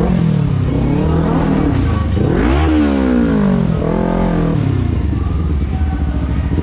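Kawasaki Ninja 300's parallel-twin engine revving up and down through the gears, its pitch rising and falling several times, with the steepest climb about two and a half seconds in.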